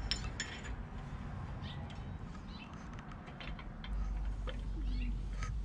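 Scattered light clicks and clinks from a winch fairlead and its mounting bolts being handled and set in place.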